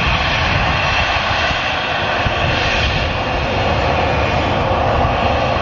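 Jet engines of a Garuda Indonesia airliner running at high power during take-off: a steady, loud rushing noise with a low rumble beneath, growing a little louder near the end.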